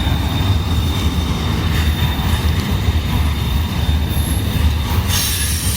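Intermodal freight train rolling past at close range: a steady low rumble of wheels and cars, with a thin, steady high-pitched wheel squeal throughout.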